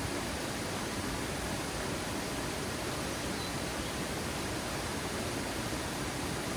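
Steady rushing of a waterfall, an even hiss of falling water with no breaks or changes in level.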